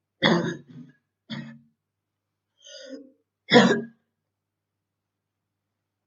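A girl coughing with bronchitis: three sudden coughs in the first four seconds, the last the loudest, with a softer voiced breath just before it.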